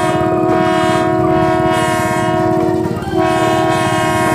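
Odong-odong mini tourist train sounding its train-style horn in two long, steady blasts with a short break about three seconds in, its engine pulsing underneath.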